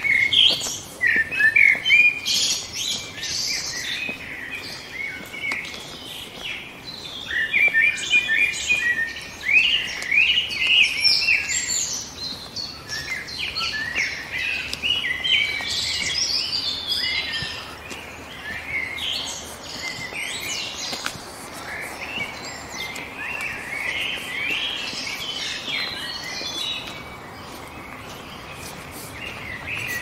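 Several songbirds singing and chirping at once, many short overlapping calls. The chorus is busiest in the first half and thins out later, over a faint steady background hiss.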